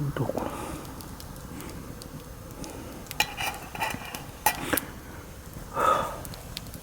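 Metal camp cookware and utensils clinking and knocking: a run of sharp clinks with brief ringing in the middle, then a heavier knock near the end.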